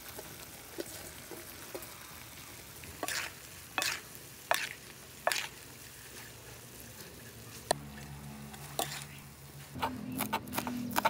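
Chicken and shredded ginger sizzling faintly in a wok, with a metal spatula scraping and knocking against the pan several times while stirring. Near the end, a knife chops green onions on a wooden cutting board in quick strokes.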